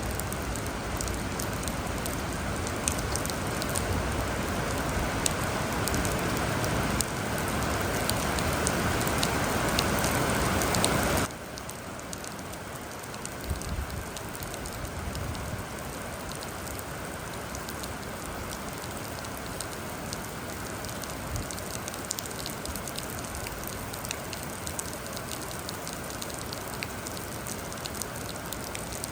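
Steady rain with fine patter of drops. It runs louder for the first eleven seconds or so, then drops suddenly to a softer, even level.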